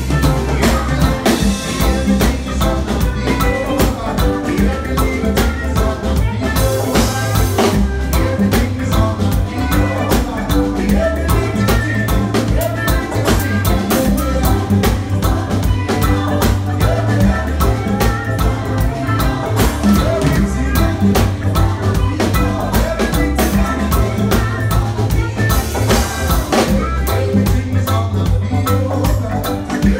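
Drum kit played live, close up, laying down a reggae groove with steady cymbal and snare strokes over a band's bass line.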